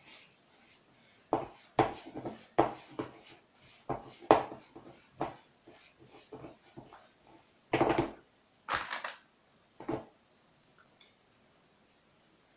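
Irregular knocks and scrapes of a plastic mixing bowl and a spoon as a stiff butter-and-coconut sweet mixture is kneaded by hand, the loudest and longest near the end; the handling stops about ten seconds in.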